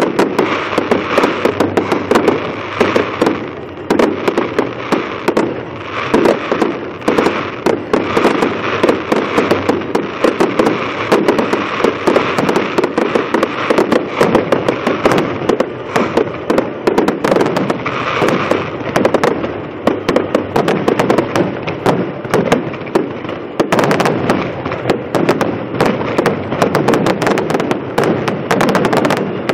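Fireworks display: a dense, unbroken barrage of aerial shell bursts and crackling, many bangs a second.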